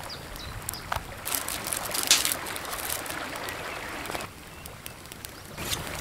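A small forest stream running steadily, with scattered crisp snaps, clicks and rustles of vegetables being cored and peeled by hand. The sound dips for about a second and a half after four seconds.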